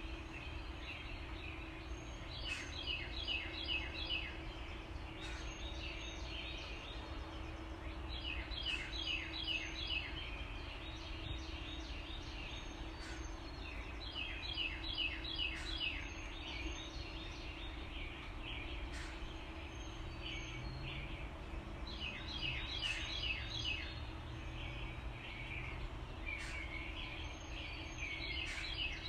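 Steady rush of a river pouring over a low dam and through rocky rapids. Over it, a songbird sings a short phrase of about five quick, bright, repeated notes five times, roughly every six seconds.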